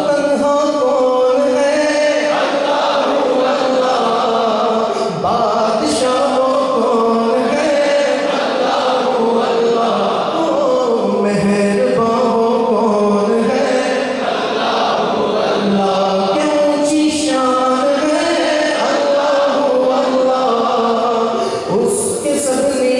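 A male voice singing a naat, an Urdu devotional praise poem, unaccompanied and amplified through a hand-held microphone, in a flowing, ornamented melody with long held notes.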